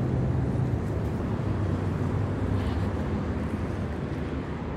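Road traffic: a steady low engine hum of passing vehicles, slowly fading.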